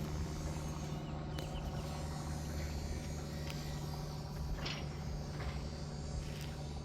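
A steady engine hum holding one low pitch without change, with a few faint clicks over it.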